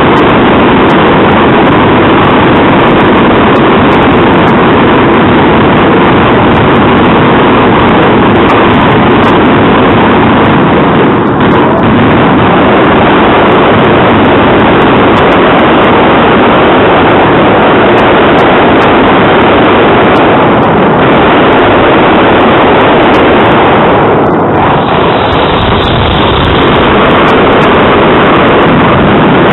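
Dense fireworks barrage at close range, the bangs and crackle merging into one continuous loud noise that overloads the recording, easing briefly about 11 and 24 seconds in.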